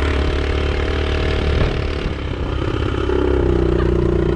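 A vehicle engine running steadily, its pitch settling slightly lower about three seconds in.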